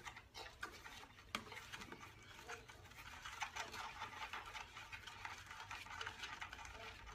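Faint scattered clicks and light taps of a lawnmower's plastic air filter cover being handled and worked loose.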